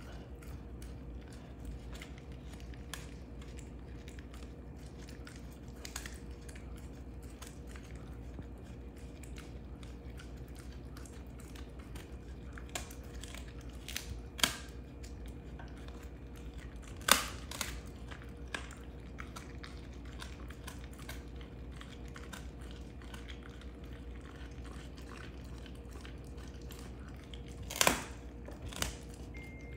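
Belgian Malinois chewing a beef rib bone: irregular crunching and cracking of bone between its teeth, with a few louder sharp cracks. A steady low hum runs underneath.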